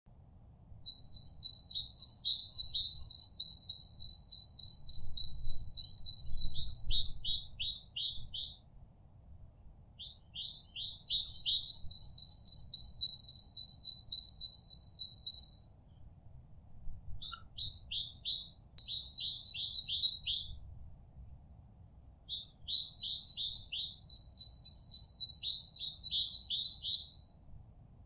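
A songbird singing four long, high, rapid trilling songs, each a few seconds long and ending in a quick run of falling notes, with short pauses between them.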